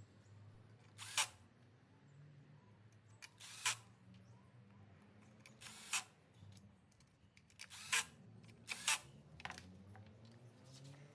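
Five short bursts of a cordless electric screwdriver, a couple of seconds apart, driving in the scooter's side cover screws one by one.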